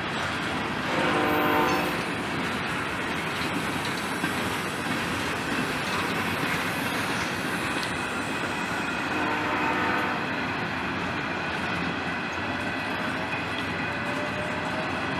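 Freight cars of a mixed train rolling past close by, a steady rumble and rattle of steel wheels on the rails. A train horn blows briefly about a second in and more faintly around ten seconds in, and a thin rising squeal starts near the end.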